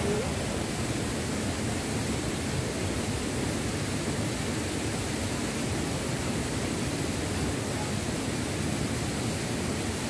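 Steady, even rush of water from a waterfall and rocky stream.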